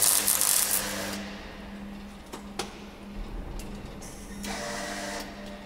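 Arc welding on a car's rusted underbody: a burst of welding about a second long at the start, a few sharp clicks, then a second shorter burst near the end, over a steady low hum.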